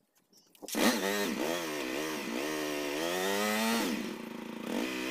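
Motorcycle engine starting suddenly about a second in and being revved up and down several times, then dropping back briefly and running steadily near the end.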